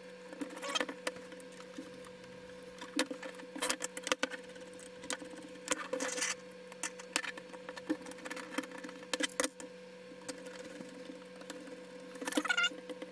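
Small metal parts clicking and knocking irregularly as a screwdriver turns screws into the steel frame of a SATA hot-swap drive rack, over a faint steady hum. A few short squeaks come near the end.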